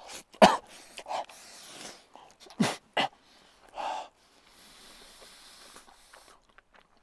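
A person huffing around a mouthful of hot food: a few short, sharp breaths and throaty noises, then a long breathy exhale through an open mouth lasting under two seconds.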